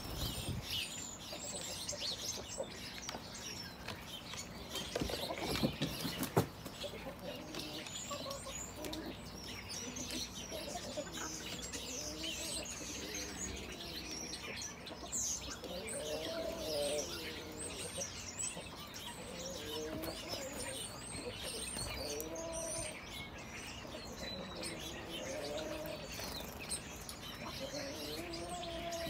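House sparrows chirp constantly. About five to six seconds in there is a brief clatter. In the second half the chickens make low, rising-and-falling crooning calls every second or two while they feed.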